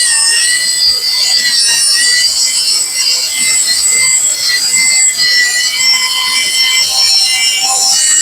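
Kobalt 3-inch cut-off tool running in reverse with a diamond multi-purpose cutoff blade, grinding through 1/4-inch flat steel: a loud, steady high-pitched whine over a grating scrape.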